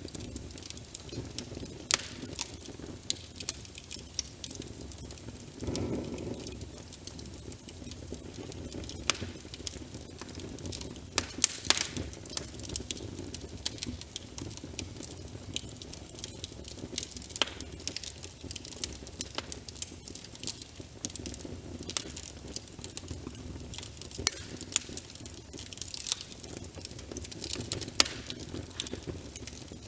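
Crackling wood fire layered with steady rain: frequent sharp pops and snaps over a soft, even patter and hiss. About six seconds in there is a brief low swell.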